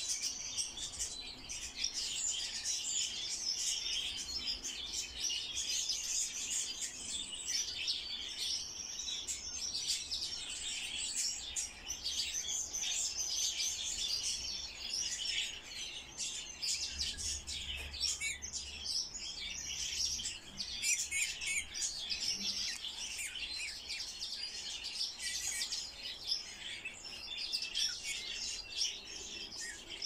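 A songbird chirping and twittering without a pause, a quick run of short, high notes.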